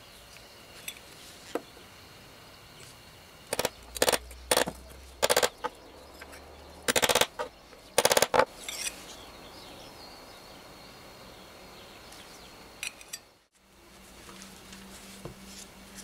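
A small hand tool scraping at metal in about six short, loud rasping strokes bunched together in the middle, over a faint steady background hiss.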